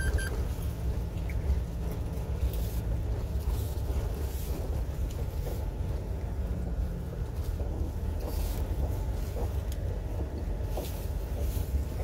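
Truck engine running steadily under load while climbing a slope, with tyre and road noise, heard from inside the cab.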